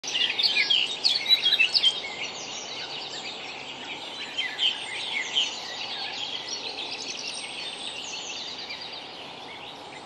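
Many birds chirping and singing together over a steady background hiss, loudest and busiest for about the first two seconds, then softer.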